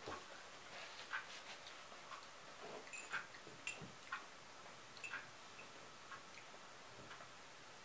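Faint, irregular small clicks and light taps of someone eating at a table: chewing, and handling a ceramic mug.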